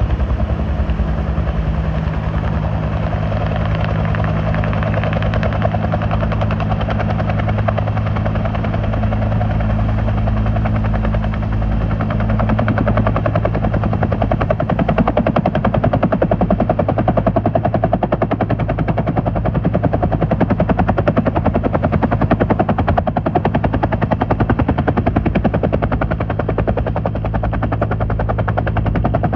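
Two-bladed helicopter coming in to land: a steady low turbine hum under a continuous rotor roar. From about halfway in, the rapid chop of the blades grows sharper and stronger as it nears the ground.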